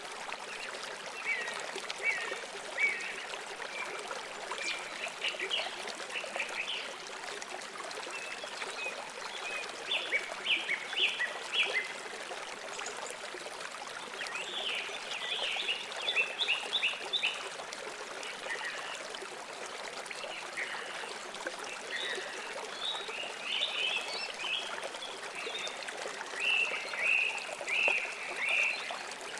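A river or stream running steadily, with small birds chirping over it in short clusters every few seconds.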